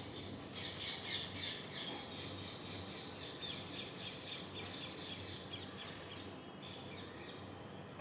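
Birds chirping and squawking in a dense, rapid chatter, busiest in the first couple of seconds.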